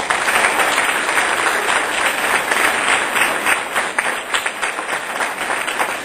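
Audience applauding, many hands clapping at once in a dense, steady patter that eases slightly toward the end.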